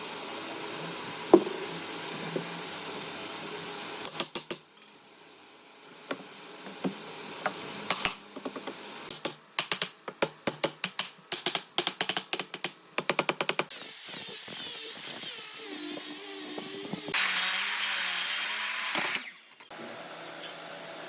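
Woodworking tools on wood. A run of quick, sharp clicks, then a power tool running for about five seconds, louder in its last two seconds, which stops suddenly.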